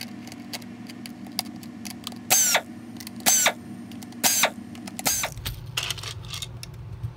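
Cordless electric screwdriver running steadily as it backs screws out of a Dyson V7/V8 cyclone's plastic shroud, with short sharp squeaks about once a second. The motor stops about five seconds in.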